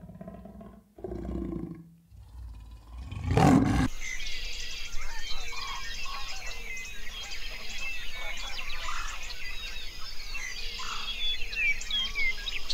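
A big cat calling in low pulses, loudest about three and a half seconds in. Then a busy chorus of many small birds chirping and twittering.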